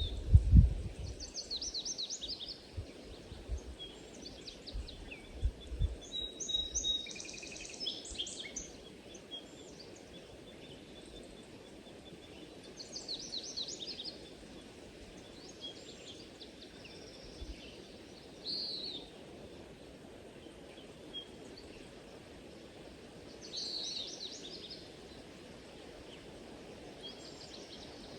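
Songbirds singing in short, repeated phrases every few seconds over a steady low background rumble. A few deep thumps sound in the first several seconds, the loudest about half a second in.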